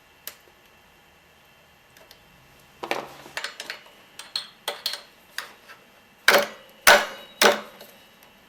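Scattered clicks and knocks of hand tools working on a motorcycle's front axle as it is being loosened, with a quiet stretch early on and three louder sharp clicks near the end.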